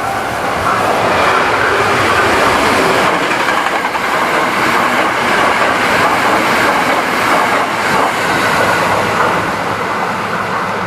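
Train passing close by: a loud, steady rush and rattle of its wheels on the rails.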